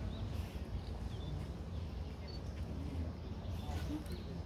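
Outdoor ambience: a steady low rumble, a faint murmur of distant voices, and a few short, high chirps scattered through.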